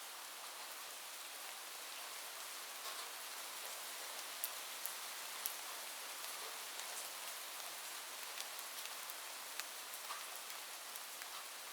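Light, gentle rain falling steadily as a soft hiss, with scattered individual drops ticking sharply on nearby surfaces.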